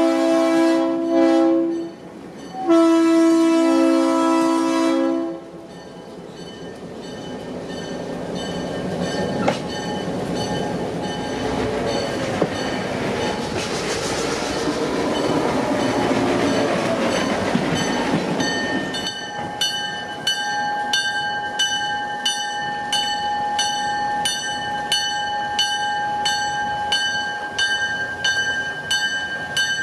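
Locomotive 8218's horn sounds two blasts: one ending about two seconds in, then a second of about two and a half seconds. The locomotive then runs past, its noise rising and fading. From about two-thirds in, a bell rings steadily at about one and a half strikes a second.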